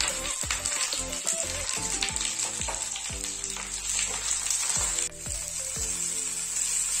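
Susuni shak (water clover) leaves sizzling as they fry in a little oil in a non-stick frying pan, being stirred with a spatula.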